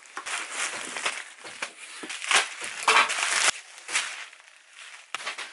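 A cardboard parcel being cut open with a knife and unpacked: cardboard and tape tearing and bubble wrap crinkling in irregular bursts. The loudest bursts come a little over two seconds in and around three seconds.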